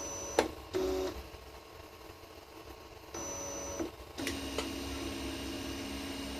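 Creality Ender 3 V3 Plus 3D printer running its self-check: its stepper motors whine in short runs that start and stop with clicks, then run on steadily from about four seconds in.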